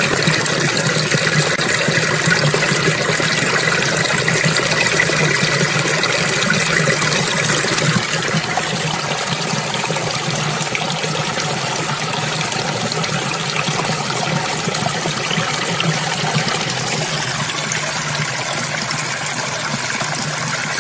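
Shallow stream of water flowing steadily over rocks, a continuous trickling rush.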